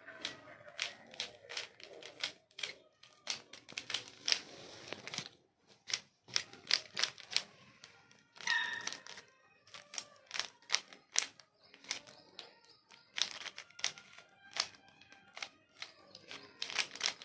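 A 3x3 Rubik's-type puzzle cube being turned fast by hand while it is solved: a rapid, irregular run of plastic clicks, several a second, as the layers snap round.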